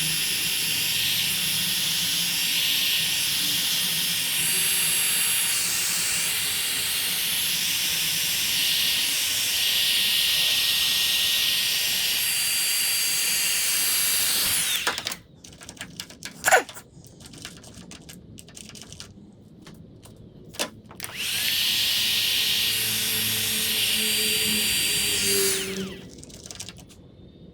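Heat gun blowing to shrink heat-shrink tubing on a wiring harness: a steady whirring hiss for about fifteen seconds, then a pause with a few sharp clicks, then running again for about five seconds.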